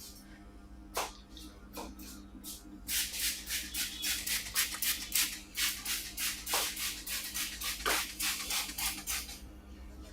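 Hands vigorously rubbing and scrubbing hair and scalp in a head massage: a few scattered scratchy strokes, then from about three seconds in a fast run of them, roughly four a second, easing off near the end.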